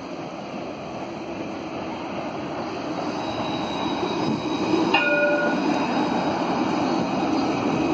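Alstom Citadis light-rail tram passing close by, its running noise of steel wheels on rails and traction equipment growing louder as it approaches and goes past. A single short ringing ding sounds about five seconds in.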